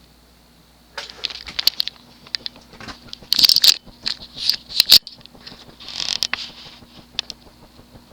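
Union industrial ceiling fan's motor running on medium speed with a faint steady hum. From about a second in, loud irregular clicking and rattling comes and goes for several seconds over it.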